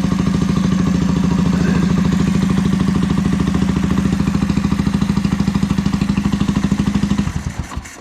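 Suzuki GN250's single-cylinder four-stroke engine idling with a steady, even beat, running smoothly now that its carburettor float height has been corrected. Near the end the engine stops and dies away.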